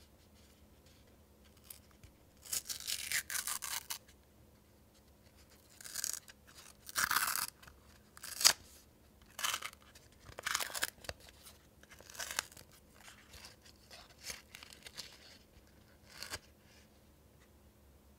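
Paper baking cup being peeled and torn away from a small baked sponge cake: irregular bursts of crinkling and tearing paper, with one sharp crackle about eight and a half seconds in.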